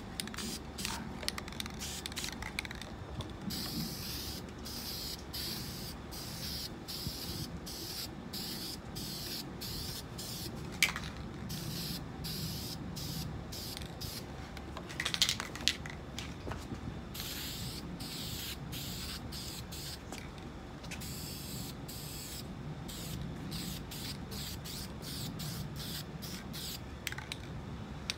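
Aerosol spray paint can hissing in many short bursts with brief gaps between them, laying a colour coat onto a guitar body. A few sharp clicks stand out near the middle.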